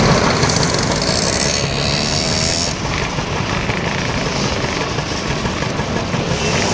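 A procession of vintage two-stroke motor scooters, Lambrettas among them, riding past one after another, several engines running at once at different pitches.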